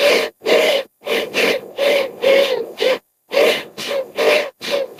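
Creature sound effect for a gorilla-bear hybrid: a rapid string of short, breathy, pitched grunting calls with a brief pause about three seconds in.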